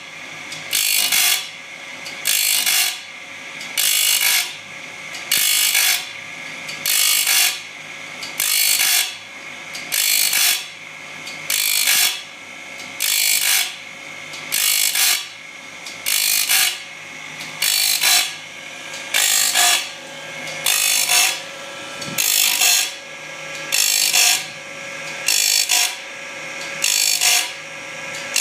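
Gear grinding machine at work: a rasping hiss of the grinding wheel on the workpiece comes in regular strokes about once every 1.2 seconds, over a steady hum from the machine.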